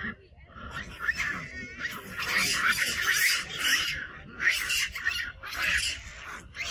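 Long-tailed macaques screaming in a squabble: a rapid run of harsh, high shrieks, about two a second, starting about a second in.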